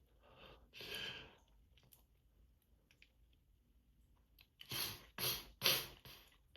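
A person's allergy sneezes: a deep breath about a second in, then a quick run of four short sneezes near the end.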